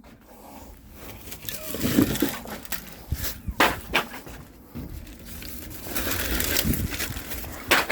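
Split firewood logs being unloaded, knocking and clattering against one another, with several sharp wooden knocks over scraping and rustling.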